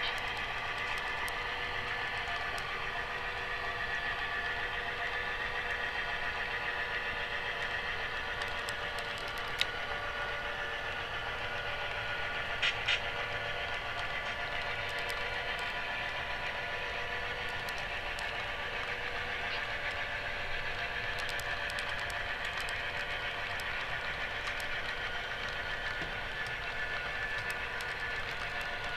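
HO scale model freight cars rolling steadily along model track, a continuous whirring rumble, with a few sharp clicks including a close pair about thirteen seconds in.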